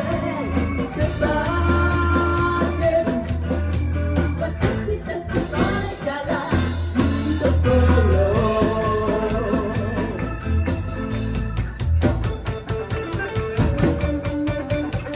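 A live band playing a song with a steady beat, a strong bass line and sustained keyboard-like tones.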